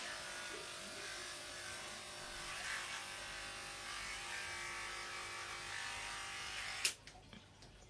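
A small electric motor hums steadily, then is switched off with a click about seven seconds in.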